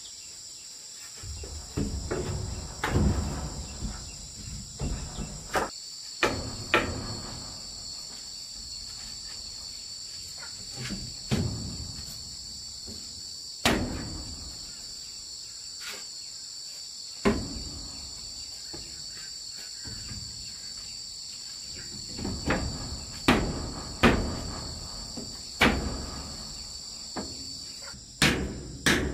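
Wooden wall planks being handled and knocked into a frame: scattered wooden knocks and bumps, then a quick run of hammer blows near the end. Steady high-pitched insect chirring throughout.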